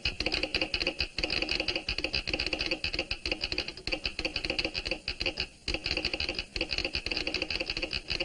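Telegraph key and sounder clicking out Morse code in rapid, irregular runs of dots and dashes as a message is sent, with a short break about five and a half seconds in.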